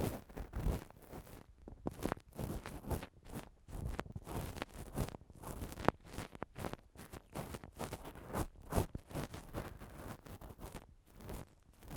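Ear-cleaning tool scratching and scraping against an ASMR microphone, in irregular short strokes with brief pauses and one sharper click about six seconds in.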